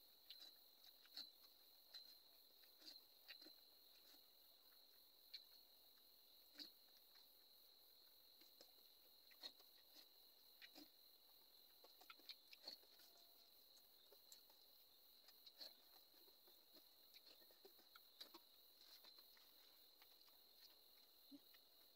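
Near silence broken by faint, scattered clicks and smacks of a man eating noodles by hand from a steel plate, chewing as he goes, over a steady thin high-pitched whine.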